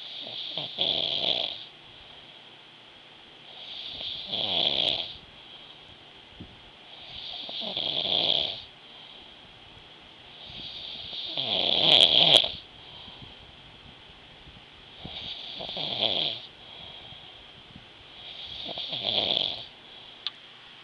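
A sleeping person snoring: six snores about three and a half seconds apart, each swelling and then cutting off, the fourth the loudest.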